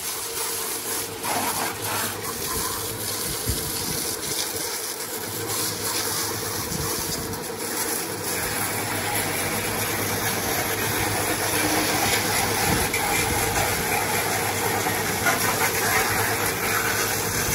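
Pressure washer jet spraying a car's body with a steady hissing rush of water as it blasts off caked mud, a steady hum running underneath. The spray grows a little louder toward the end.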